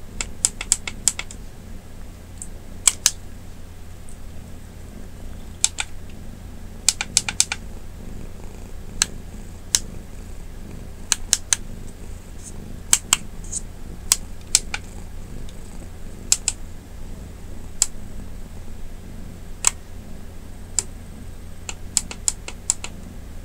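A domestic cat purring steadily, with sharp clicks over it, singly and in quick runs of three or four.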